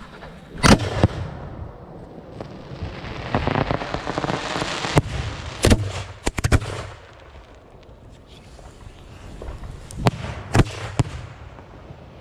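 Consumer fireworks going off: a run of sharp bangs, two near the start, a cluster in the middle and three more near the end. Between them a crackling hiss builds for a couple of seconds.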